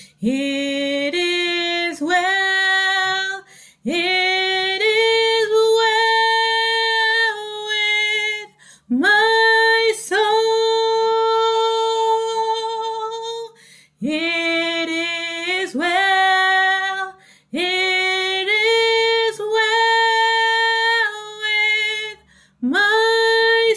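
A woman singing a hymn unaccompanied, in about six slow phrases of long held notes with short breaths between them.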